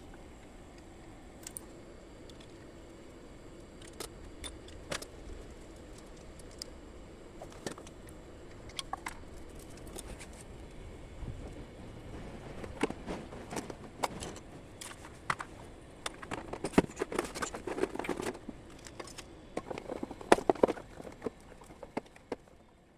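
Scattered light clicks, clinks and knocks of small hard objects being handled, sparse at first and growing much busier in the second half, over a faint steady hum.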